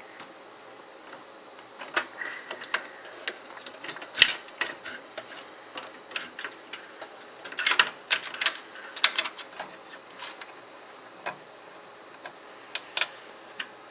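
Irregular clicks and taps of front-panel USB cable connectors being handled and fitted inside a PC case, loudest about four seconds in and in a cluster around eight to nine seconds.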